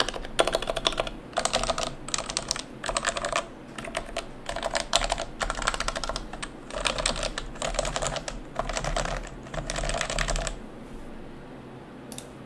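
Typing on a custom mechanical keyboard with lubed, unsilenced RF101u switch housings and sliders in a brass plate. The keystrokes come in runs of rapid clicks with short pauses between them and stop about ten seconds in, leaving faint room hiss.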